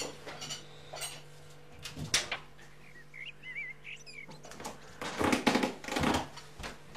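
Stacked china plates and cutlery clinking and rattling as they are handled and carried, loudest in two clatters about five and six seconds in. A small bird chirps a few times in the background.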